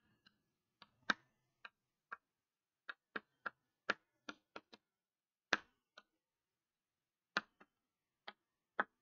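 Chalk writing on a chalkboard: a string of faint, sharp, irregular clicks as the chalk taps against the board with each stroke, with a short gap in the middle.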